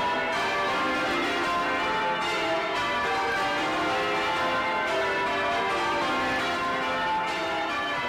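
Twelve-bell ring of 1932 Taylor church bells (tenor in C) being rung full circle, heard close up in the bell chamber: the bells strike one after another in quick succession, their tones overlapping into a continuous ringing wash.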